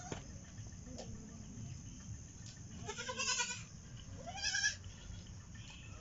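Goats bleating twice in a pen: a longer, quavering bleat about three seconds in, then a shorter, higher one about a second later.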